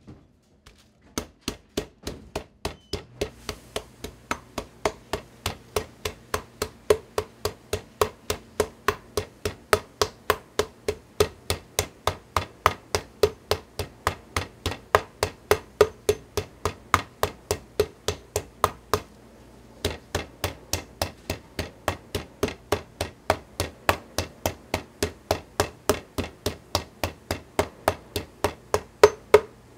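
Metal meat tenderizer mallet pounding pork slices flat through plastic wrap on a wooden board, in steady strikes about three a second, with a short break about two-thirds of the way through.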